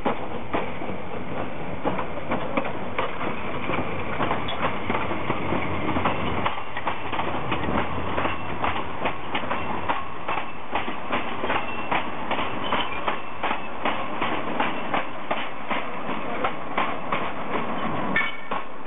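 Narrow-gauge steam train pulling away and its carriages rolling past close by. There is a rough rumble at first, then from about a third of the way in the wheels click over the rail joints in a steady rhythm of about two to three clicks a second.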